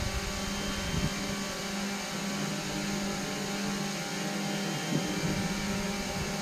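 Steady background hum and hiss of a large hall, with a faint knock about a second in and another near five seconds.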